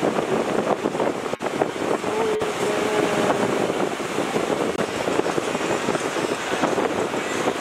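Wind buffeting the microphone over the steady rush of ocean surf breaking on the beach.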